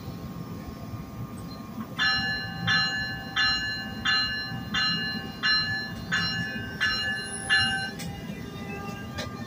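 Locomotive bell on an NJ Transit ALP-46A electric locomotive ringing about nine evenly spaced strokes, a little under one and a half a second, starting about two seconds in and stopping near the eight-second mark: the warning rung as the train gets ready to depart. A steady low rumble from the standing train runs underneath.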